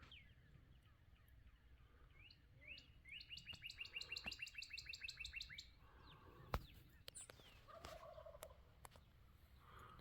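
Faint bird calls: a bird's rapid trill of about twenty quick, falling notes lasting about three seconds, with a few scattered single chirps around it. A single sharp click comes about six and a half seconds in.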